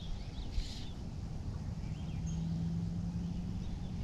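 Faint bird chirps in the background over a low rumble of wind on the microphone, with a steady low hum coming in about two seconds in.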